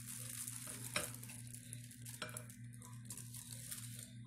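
Aluminium foil crinkling and rustling as it is pulled off a glass baking dish, with two sharp clicks, about a second in and just after two seconds.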